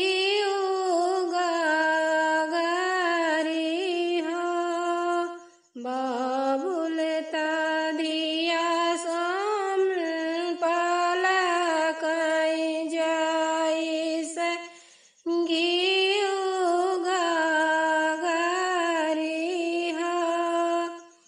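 A woman singing a Bagheli folk song with no instruments, in three long, drawn-out phrases with short breaks for breath about five and fifteen seconds in.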